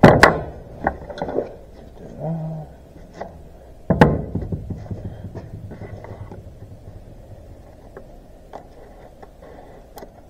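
A hammer knocks sharply on gasket sheet laid over a metal tractor shifter housing, marking out the bolt holes, with a second hard knock about four seconds in. After that come faint ticks and rustles as the stiff gasket sheet is handled and cut with scissors.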